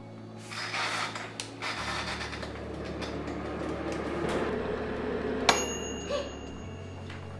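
Oster air fryer being switched on by its timer dial: its fan starts with a steady hum and a whirring rush of air, then cuts off shortly before the end. There is a sharp click about five and a half seconds in.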